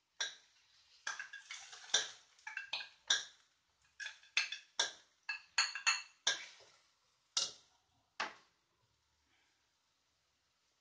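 Metal spoon scraping and tapping oyster sauce out of a small dish over a wok: an irregular run of sharp clinks that stops a couple of seconds before the end.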